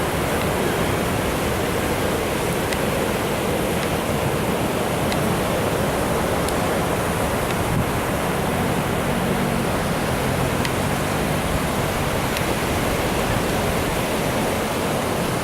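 Steady, even rushing noise outdoors, without clear events.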